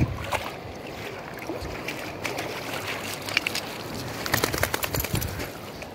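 Shallow river water trickling and lapping at a pebbly edge, with a wet golden retriever's paws splashing and crunching on wet stones. A quick run of clicks and crackles comes about four seconds in, as the dog comes right up to the phone.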